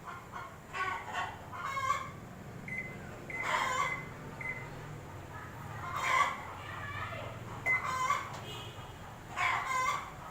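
Chickens clucking in repeated short calls every second or two, over the low steady hum of a washing machine starting its test run.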